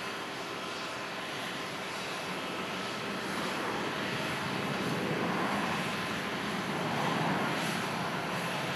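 Boeing 787-9 jet engines rushing as the airliner rolls out along the runway just after touchdown, the noise growing louder over the second half.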